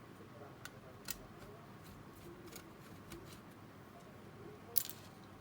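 Faint, scattered light clicks and ticks of small parts of a Sony MiniDisc deck being handled during disassembly, with one sharper click near the end.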